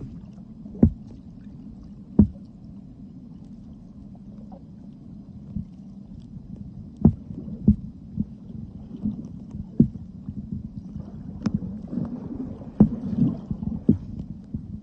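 Muffled underwater noise of a swimmer moving through the water: a low steady rumble with scattered sharp knocks, coming more often in the second half.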